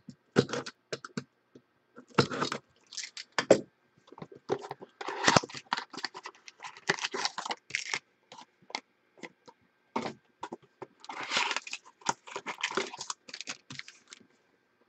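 Cardboard trading-card box being opened by hand: flaps pulled and torn open and the box and a foil-wrapped pack handled, in short irregular bursts of scraping, tearing and rustling with clicks and brief pauses.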